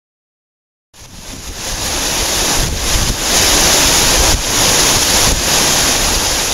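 Waterfall rushing, a steady loud wash of falling water that starts after about a second of silence and swells in over the next second.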